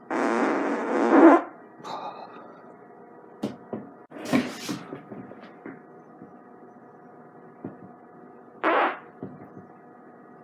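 A man farting: one long fart of about a second and a half at the start, swelling just before it ends, and a short one near the end, with a few faint knocks and rustles between.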